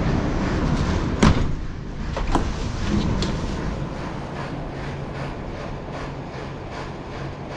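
Steady rushing workshop noise, with one sharp knock about a second in and two lighter knocks about a second apart after it.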